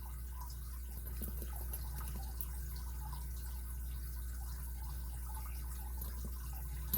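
Faint, scattered light ticks and scratches of a lock pick working the pins of a Kryptonite padlock's six-pin core under light tension, over a steady low hum.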